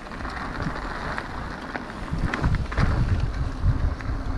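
Wind buffeting the microphone, a low rumble that gets stronger about halfway through, with scattered small clicks over it.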